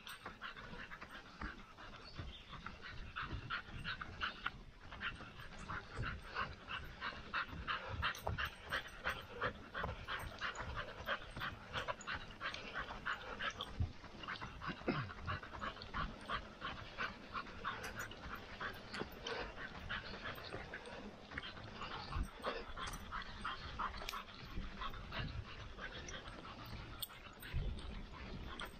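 Rapid, rhythmic panting with the thud of footfalls, at a running pace on a trail in the heat.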